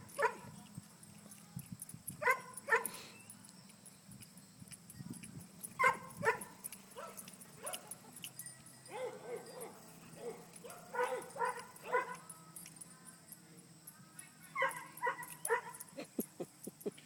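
English Setter barking in short bursts, a couple of barks at a time every few seconds.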